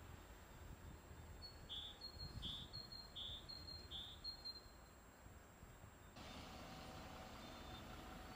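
A small bird singing a short two-note phrase, a thin high note followed by a lower rougher one, repeated about four times, over a faint steady outdoor background. About six seconds in, the background hiss suddenly gets louder.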